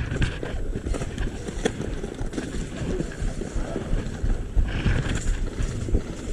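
Rumbling wind noise on the microphone, uneven in loudness, with scattered short knocks and rustles.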